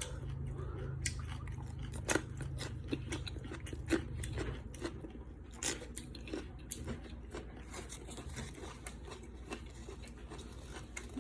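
A person chewing and biting food, with wet, crunchy mouth clicks at an irregular pace. Under it is a low hum that fades out about halfway through.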